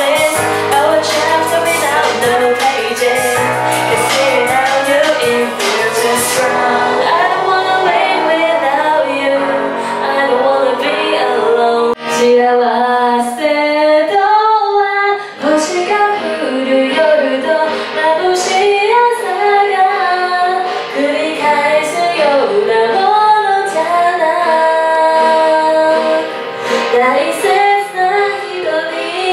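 A woman singing karaoke into a handheld microphone over the karaoke machine's backing track, in sung phrases with short breaths between them.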